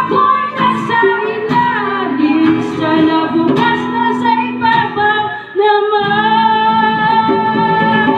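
Live acoustic band: women singing a melody through a PA system, accompanied by acoustic guitar and a hand drum, ending on a long held note.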